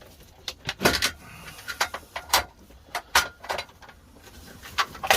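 A string of sharp clicks and knocks, about ten, irregularly spaced: hard plastic parts of a T8 LED batten light fitting being handled and pushed into place after the wiring.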